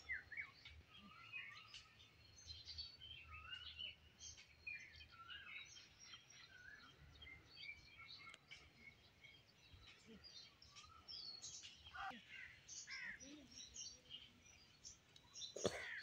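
Small birds chirping and singing faintly: a busy mix of short chirps and quick whistled notes from several birds at once. A single sharp knock sounds near the end.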